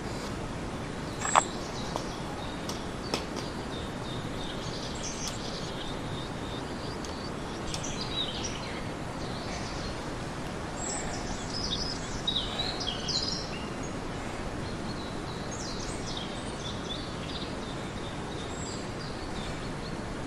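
Small birds chirping in short scattered bursts over a steady hiss of outdoor background noise, with one sharp click about a second in and two fainter ones soon after.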